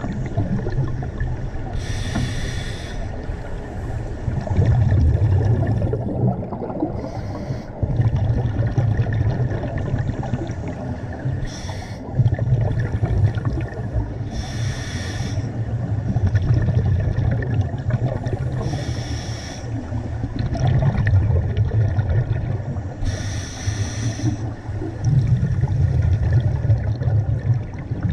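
Scuba diver breathing through a regulator underwater: a short hiss on each inhalation, then a longer bubbling rumble of exhalation, repeating about every four to five seconds.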